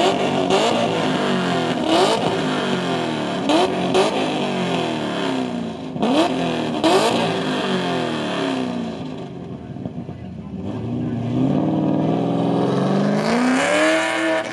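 C6 Corvette V8 revved hard in repeated sharp blips, with a few sharp cracks among them. Quieter for a moment, then revving up in one long rising pull near the end as the car pulls away.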